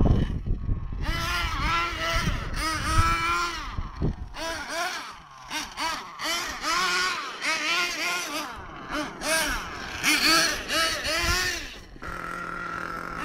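Small nitro RC truck engines revving, their high-pitched note rising and falling in quick repeated blips as the throttle is worked. Near the end, one engine holds a steady note.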